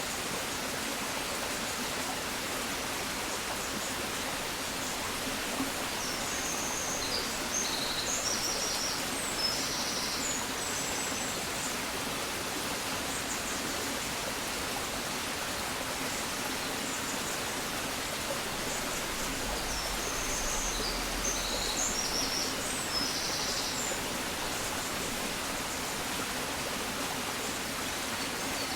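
Steady rushing noise like a flowing stream, with songbirds singing twice over it: a run of high chirps and trills about a quarter of the way in, and another just past the middle.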